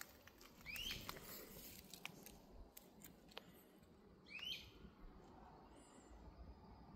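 A bird calling twice, two short sweeping calls about three and a half seconds apart, over faint outdoor quiet with a few light clicks.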